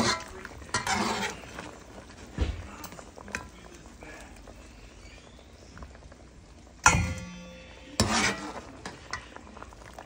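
Slotted metal spoon scraping and clinking in a pot of boiled meat and broth as the meat is scooped out into a stainless steel bowl. About seven seconds in there is one sharp metal clank that rings on briefly, then another clatter a second later.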